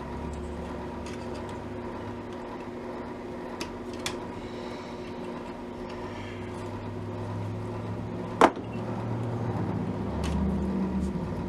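Scattered light clicks and taps of hands working wire and small parts on a radio chassis, with one sharp click about two-thirds of the way through, over a steady background hum.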